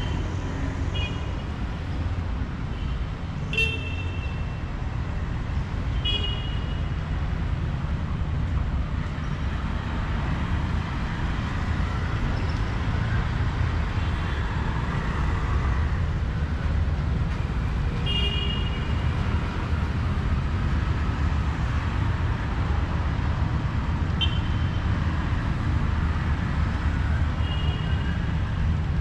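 Street traffic running steadily, with brief vehicle horn toots heard several times.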